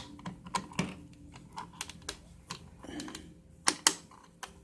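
Irregular sharp clicks and taps of a Phillips screwdriver and hands working on a plastic thermostat housing, with two louder clicks in quick succession near the end.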